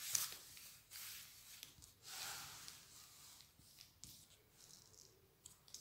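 Near silence with a few faint breathy rustles close to the microphone in the first half, fading to quieter room tone.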